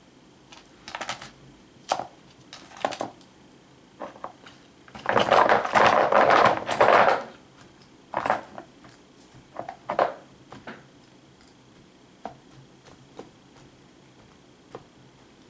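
Small bottles and desk clutter knocking and clinking as a Nile monitor lizard noses and climbs through them, with a louder clatter lasting about two seconds near the middle.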